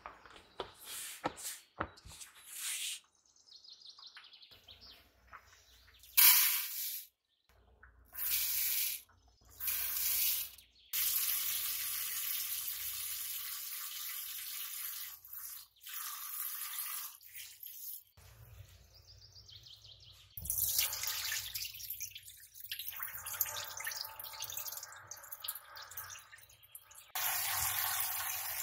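Kitchen tap water running into a sink in several spells, with short splashes at first and then longer steady runs, and drips in between.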